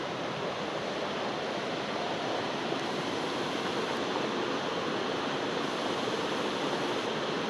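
Steady rush of a rocky river, with white water pouring over a small waterfall and rapids.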